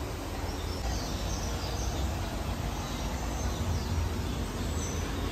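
Faint, high bird chirps scattered over a steady low rumbling background noise.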